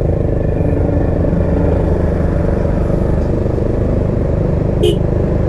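Honda CB150X's single-cylinder engine running steadily at low revs while the motorcycle is ridden on a rough off-road mountain track, with a brief clatter about five seconds in.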